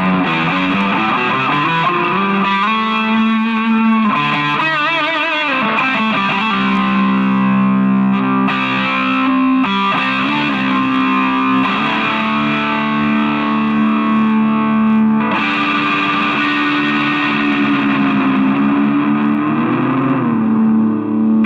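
Chinese-made Ibanez Jem7V electric guitar played through distortion: sustained lead notes with wide vibrato, including a wavering passage about four seconds in and a bend near the end.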